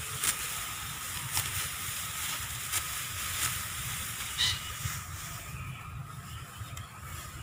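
Rice stalks being cut by hand with a sickle: short crisp cuts at irregular intervals, about one a second, over a steady hiss.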